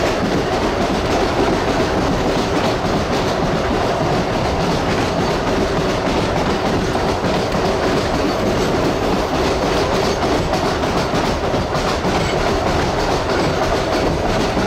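Cabin ride noise aboard a Chicago Rapid Transit/CTA 4000-series rapid transit car under way: the old traction motors whine at a steady pitch over the noise of the wheels running on the rails.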